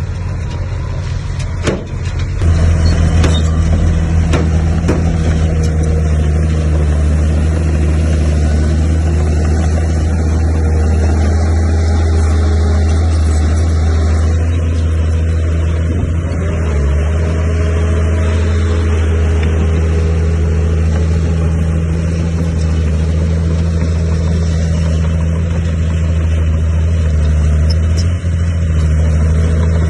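Heavy earthmoving machine's diesel engine running steadily and loudly under load, with a deep, even drone that gets louder about two seconds in and then holds.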